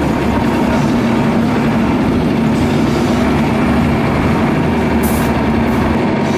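Mercedes-Benz Unimog military truck's diesel engine running steadily at low revs as the truck rolls slowly past, with a brief hiss about five seconds in.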